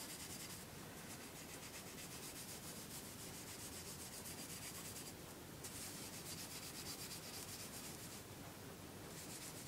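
Faint, steady rubbing of hands over a soapy metal airsoft M1911 magazine as it is washed.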